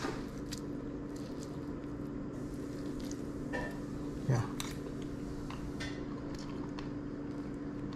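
A metal fork clinking and scraping against a ceramic plate as a piece of fish is cut and lifted, a few separate light clicks, over a steady low hum.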